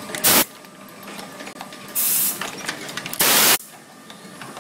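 Automatic gold chain-making machine running, its mechanism clicking rapidly as it forms links. Three short, loud hisses break in: one right at the start, one about two seconds in and one just past three seconds.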